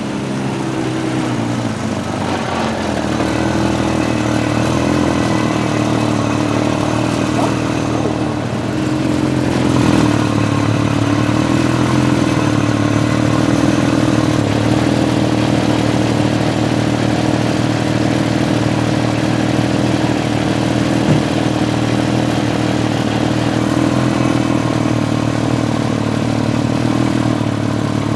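A vehicle engine dropping slightly in pitch over the first few seconds, then running at a steady, even speed, like an idle.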